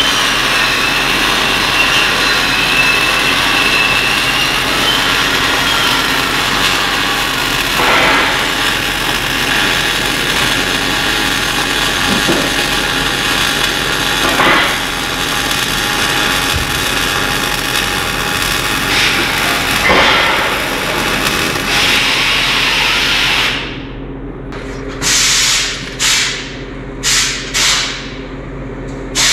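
A power tool running steadily for most of the stretch, then stopping and starting in short bursts about a second long near the end.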